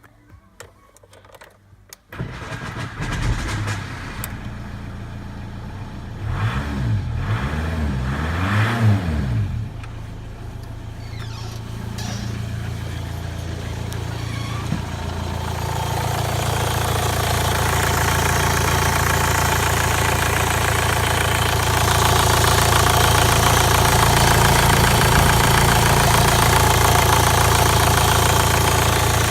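Seat Alhambra's 1.9 TDI (AFN) four-cylinder turbodiesel cranking and starting about two seconds in. It is revved up and down a couple of times, then settles into a steady idle.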